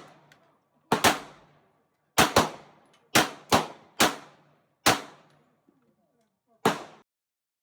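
Gunshots: eight single shots fired at an uneven pace, some in quick pairs, each sharp crack followed by a short echoing decay.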